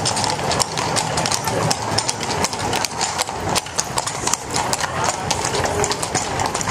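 Hooves of a team of carriage horses clip-clopping on stone paving as they pass close by: many quick, irregular strikes, over the rolling rumble of the carriage wheels.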